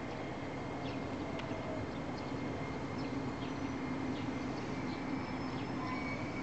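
JR Kyushu 817 series two-car electric train approaching the station, its running noise a steady low rumble growing slightly louder as it nears. Thin high wheel or brake squeal starts about five seconds in as it slows to stop, with scattered bird chirps throughout.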